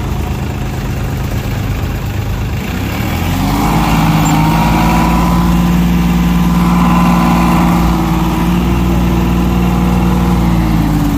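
Diesel engines of two farm tractors, an Eicher and a Sonalika DI-745, running under heavy load as one tows the other, which is bogged in mud. About three seconds in the engines rev up and hold a steady strain, then ease off near the end.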